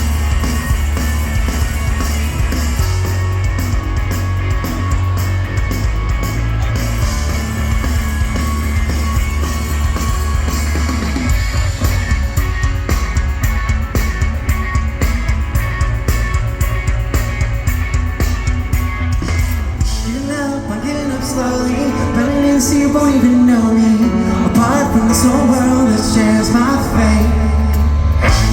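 Rock band playing live: heavy bass and guitar with fast, driving drums, and a voice singing from about twenty seconds in.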